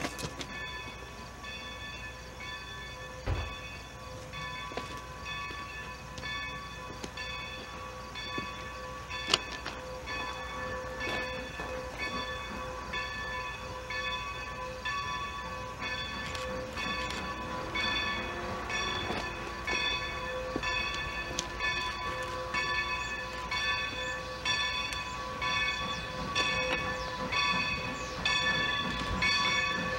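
Steam locomotive's bell ringing in a steady, regular rhythm, growing slowly louder as the engine comes closer.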